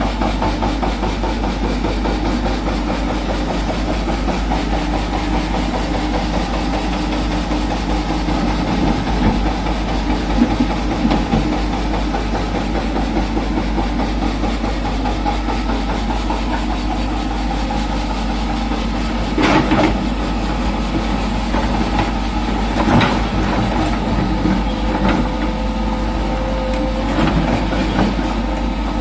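Hitachi Zaxis 210F excavator's diesel engine running steadily as the machine works. Rock clatters against the steel bucket a few times in the second half.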